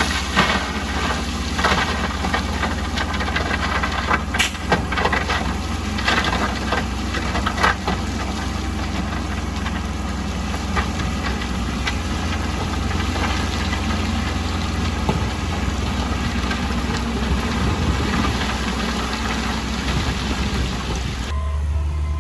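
Heavy construction machinery running with a steady engine rumble, with a run of sharp clanks and knocks in the first several seconds that then give way to a steady engine sound.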